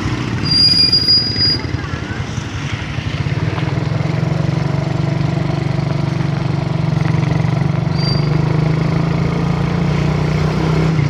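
Engine of the motor vehicle carrying the camera running steadily as it drives along, a continuous low drone over road noise. A brief high-pitched squeal about half a second in, and a fainter one near 8 seconds.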